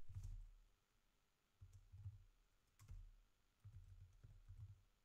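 Faint typing on a computer keyboard: a few scattered key clicks with soft dull thuds between them.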